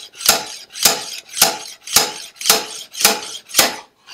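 Slide hammer clanking in a steady rhythm, seven sharp metal-on-metal strikes about two a second, as it pulls an old rear main crankshaft seal out of an Isuzu 4BD1T diesel by a screw driven into the seal.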